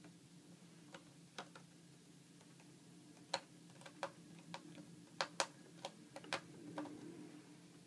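A series of about a dozen light, irregular clicks and taps, more frequent in the second half, over a faint steady low hum.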